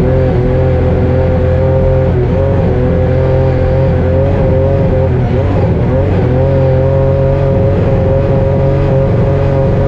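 Rally-raid car's engine running hard at high, fairly steady revs, with brief dips in pitch about two and five and a half seconds in, as from lifts or gear changes.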